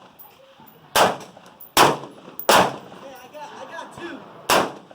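Four rifle shots from an AR-15-type rifle with a Wolf A1 upper, fired at uneven intervals: three in quick succession about a second in, then one more near the end. Each shot has a short echo.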